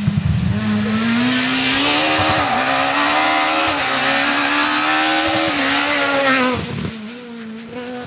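Renault Clio S1600 rally car's engine at high revs as it accelerates through a bend. The pitch climbs with two brief dips at gearshifts, then drops and fades near the end.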